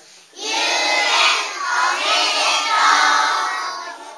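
A group of young children calling out loudly together, many voices at once, starting about half a second in and fading near the end.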